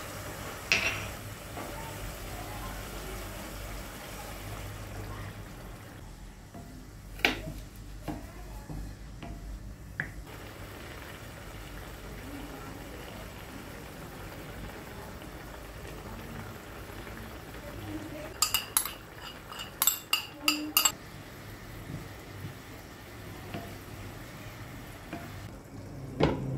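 Utensil sounds from a wok on the stove over a steady low hum. A few single clinks come in the first ten seconds, then a quick run of about eight metallic clinks around two-thirds of the way in. A glass lid clunks down onto the wok near the end.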